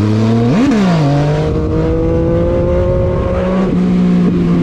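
Yamaha MT-09's three-cylinder engine pulling through the gears: the pitch climbs, drops sharply at a gear change about a second in, rises slowly, then drops again at another shift near the end.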